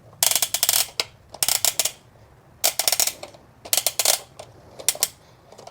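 A toy crane's hand-turned boom-angle knob and its plastic gearing clicking in five short bursts about a second apart, as the knob is turned in strokes to wind the boom back up.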